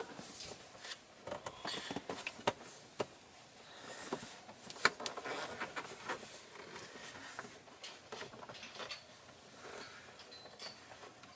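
Plastic clicks, taps and rubbing as a cabin air filter is pushed and worked by hand into its plastic housing under the dashboard, the filter not seating. Scattered sharp clicks throughout, the loudest about five seconds in.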